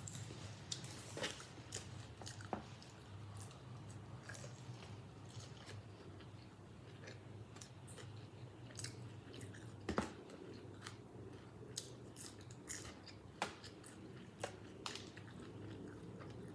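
A person chewing and biting into hot-chicken food close to the microphone, with scattered short mouth clicks and crunches. A faint steady low hum runs underneath.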